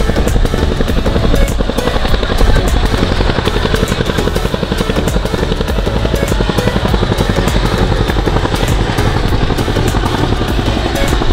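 Boeing CH-47 Chinook tandem-rotor helicopter flying by, its rotors beating in a rapid, steady pulsing rhythm over a low rumble.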